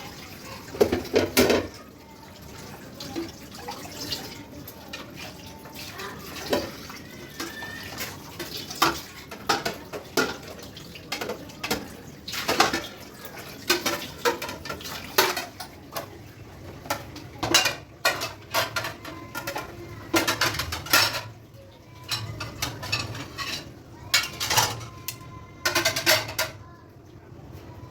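Dishes and cutlery clattering and clinking while being handled, with many irregular knocks and short ringing tones.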